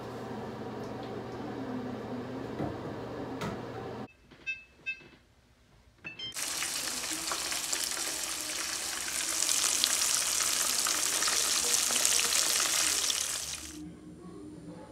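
Hot oil sizzling loudly with crackle as food fries, starting after about six seconds and fading out near the end. It is preceded by a steady hum with a few clicks, then a short quiet gap with two short beeps.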